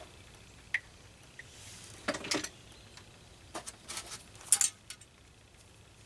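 Small clinks and knocks of loading gear being handled and set down on a table, a few light taps spread through, the loudest about four and a half seconds in.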